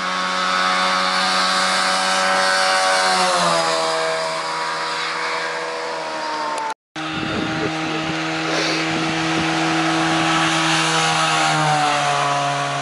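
Rally cars' engines held at high revs on a tarmac stage, each a steady buzzing note that then drops in pitch; the sound cuts out briefly about seven seconds in. The second car is a Trabant rally car with a two-stroke twin-cylinder engine, passing close by near the end.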